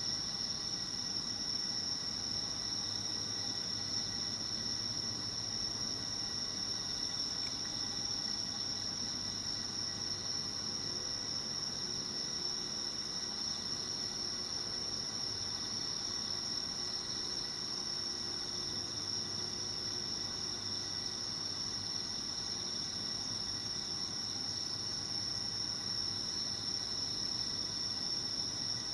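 Night insects singing in a steady, unbroken high-pitched chorus.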